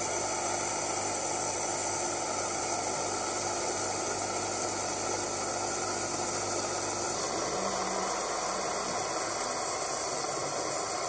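Coffee machine frothing milk and dispensing it through its twin spouts into a glass, a steady pump hum with a hiss of steam and air, making hot chocolate. The tone shifts slightly about seven seconds in.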